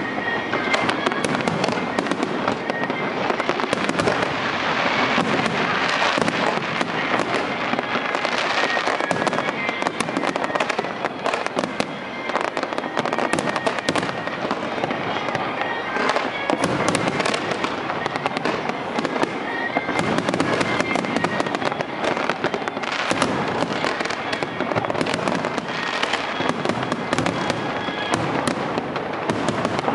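Fireworks display with many aerial shells bursting in rapid, near-continuous succession: a dense run of bangs and crackles with no break.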